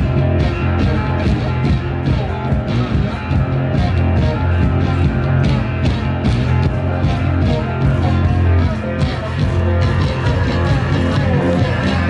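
Live blues-rock band playing: electric guitar and bass over a steady drum beat.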